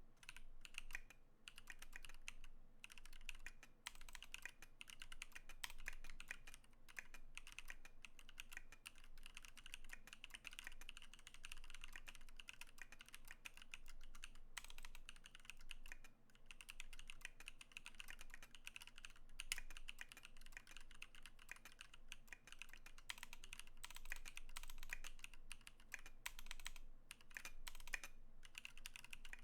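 Steady fast typing on a KBD19x mechanical keyboard with factory-lubed Holy Panda tactile switches. Dense key clacks with a few brief pauses between bursts.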